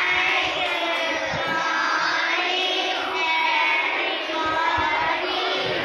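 A class of schoolchildren reading aloud together in unison: an unbroken chorus of many children's voices chanting the words of an English lesson.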